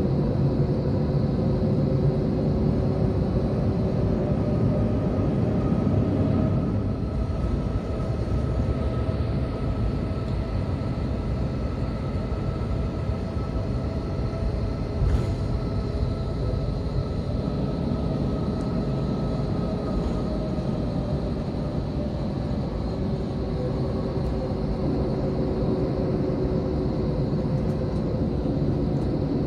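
Cabin noise of an Airbus A321 taxiing: a steady rumble of the engines at low power with faint steady whining tones over it, and one sharp knock about halfway through.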